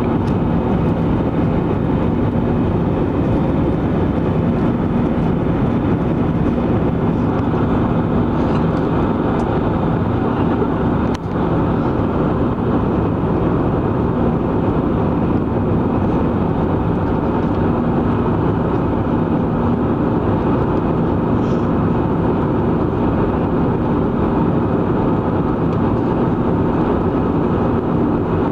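Airbus A320 cabin noise in flight shortly after takeoff: steady jet engine and airflow noise heard from inside the cabin at a window seat over the wing, with a low steady hum. A brief click about eleven seconds in.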